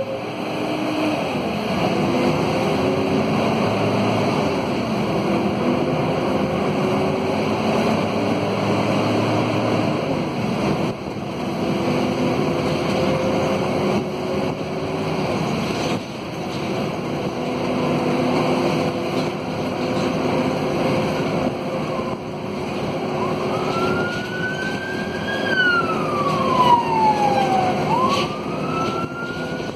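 Cabin sound of a Scania K230UB bus under way: its DC9 diesel engine rises in pitch several times as the ZF Ecomat automatic gearbox works through the gears, over a steady howl from the radiator fan. From about 23 seconds in, a siren wails outside, rising, falling and rising again.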